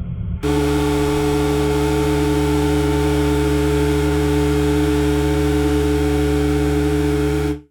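Drone propellers spinning, a steady buzzing whine that holds one pitch with two strong tones over a low hum. It starts abruptly about half a second in and cuts off suddenly near the end.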